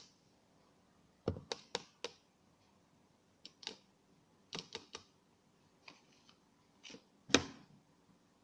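Scattered light clicks and knocks of small objects being handled and set down, with the sharpest knock about seven seconds in.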